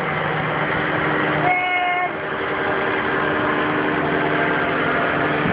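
Steady drone of a powered paraglider's (paramotor's) engine and propeller passing overhead, a hum of several fixed tones over a rushing haze.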